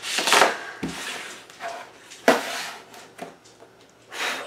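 A sheet of adhesive craft vinyl on its backing being picked up and handled, rustling and crackling in three short bursts.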